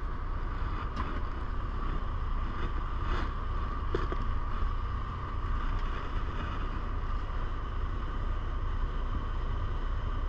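Steady low rumble with a faint constant hum, with a few light clicks from small objects being handled.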